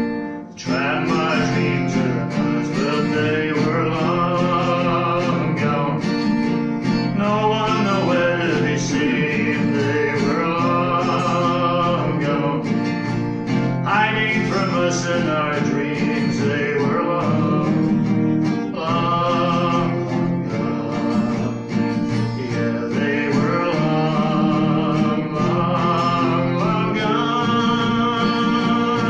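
Man singing a folk song with his own strummed acoustic guitar accompaniment.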